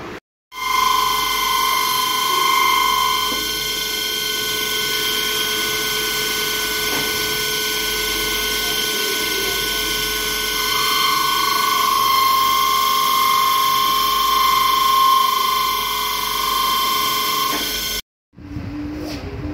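Motor-driven polishing wheel running on stainless steel strip, a steady whine made of many tones. One tone in the whine swells louder twice: briefly near the start, and for several seconds in the second half. The sound cuts off abruptly near the end.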